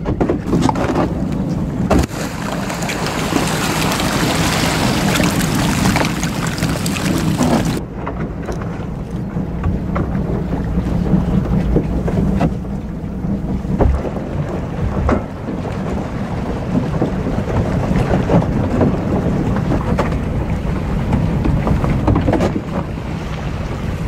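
A boat's engine running steadily, with wind on the microphone. A loud rushing hiss over it in the first eight seconds cuts off suddenly.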